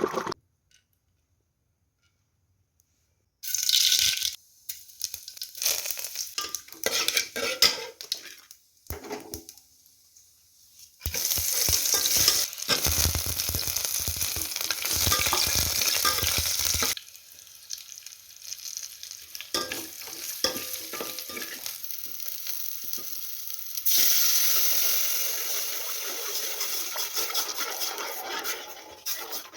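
Food sizzling as it fries in a hot pan, with a utensil stirring and scraping against the pan. There are several separate spells, with about three seconds of near silence shortly after the start.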